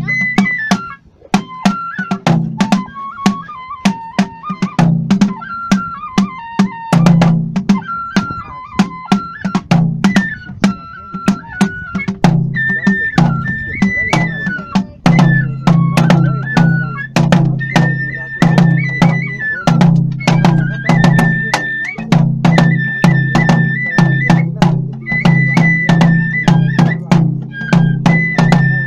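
Kagura festival music: a bamboo flute plays a high melody that steps up and down, over a drum beating a steady rhythm, with sharp strikes throughout.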